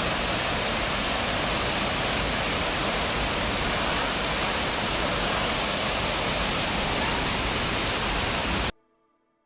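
Steady, even rush of falling water from Decew Falls heard up close, cutting off suddenly near the end.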